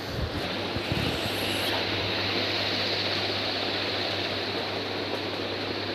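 Split air conditioner running: a steady rush of air over a low hum, with a few soft knocks in the first second.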